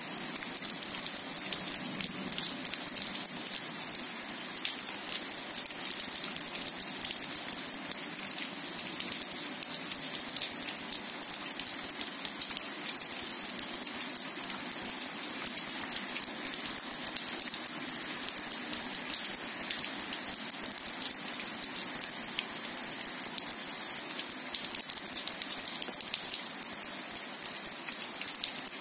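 Steady rain falling on wet asphalt and grass: an even hiss full of close, tiny drop hits, with no letup.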